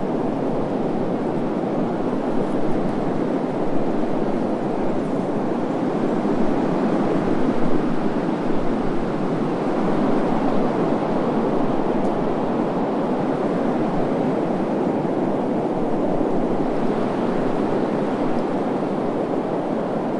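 Steady desert wind blowing, an even rushing noise with small gusty swells.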